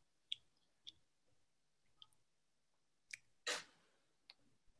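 Near silence, broken by about five faint, short clicks and one brief rush of noise about three and a half seconds in.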